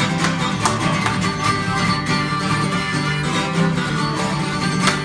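Acoustic guitar strummed in a blues, with sustained melody notes held over the strumming.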